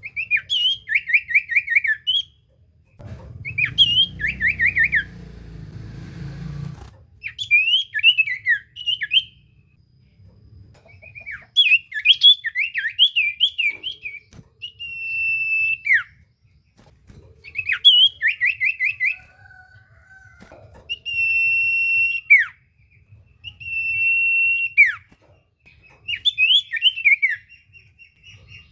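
Common iora (cipoh) singing. Bursts of fast trilled notes alternate with long, steady whistles that each drop sharply at the end. A low rumble runs under the song from about three to seven seconds in.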